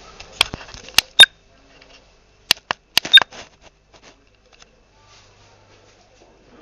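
A series of sharp clicks and knocks: three in the first second and a half, the last of them the loudest, then another quick cluster of four about a second later, followed by near quiet with a few faint ticks.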